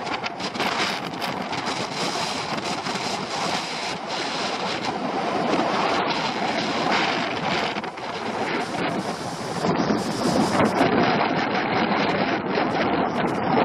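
Skis sliding and scraping over packed snow, with wind rushing over the microphone. The scraping gets louder and harsher about ten seconds in.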